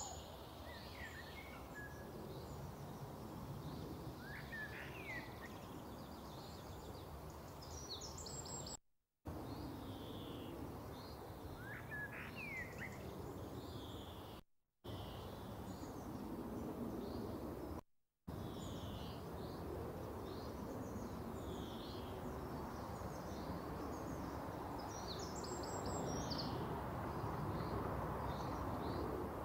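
Small birds chirping and trilling over a steady background hiss; the sound cuts out abruptly three times for a fraction of a second.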